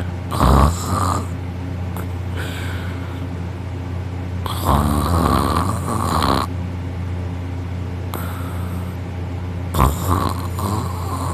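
Person snoring loudly in deep sleep: three long, rasping snores about four to five seconds apart, with softer breaths between them, over a steady low hum.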